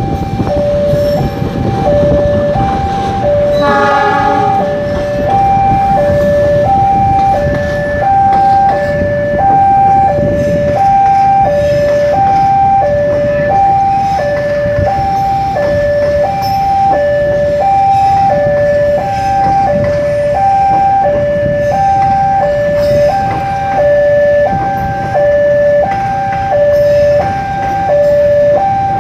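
Indonesian railway level-crossing alarm sounding its alternating high-low two-tone, over the rumble of passenger coaches rolling past on the track. A short horn blast sounds about four seconds in.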